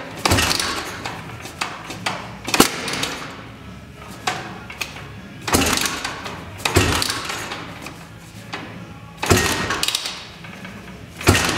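Rotax two-stroke engine in a Honda ATC250R frame being kick-started over and over, about eight kicks roughly one to two seconds apart, each a loud burst of clatter as it spins over without catching. The builder suspects the ignition timing is off.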